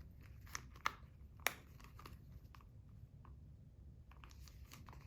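Faint handling noises from a wallet being moved about in the hands: a few light clicks and soft rustles, the sharpest about a second and a half in.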